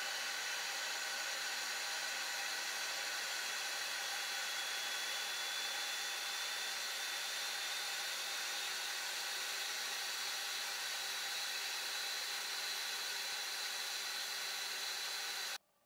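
VEVOR 3 kW milling spindle running steadily at speed: an even rushing hiss with a faint high whine. It runs smoothly, its rotating parts well balanced, and the sound cuts off suddenly near the end.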